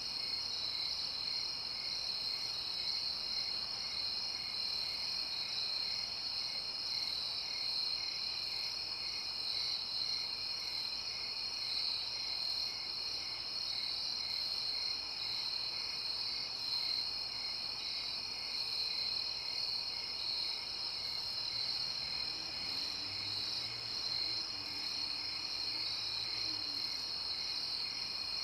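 Night insect chorus, crickets trilling steadily in high continuous tones, with one chirping in an even pulse about three times a second.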